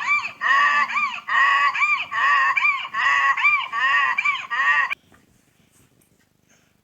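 Donkey braying: a long run of rapid, repeated honking calls that stops abruptly about five seconds in.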